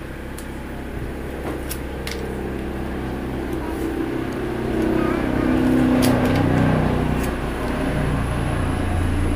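A low, steady machine hum that swells louder about halfway through, with a few light clicks over it.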